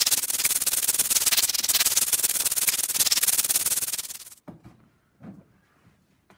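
Loud, steady hissing noise, strongest in the treble, that cuts off abruptly a little over four seconds in; after it, only a few faint knocks and rustles.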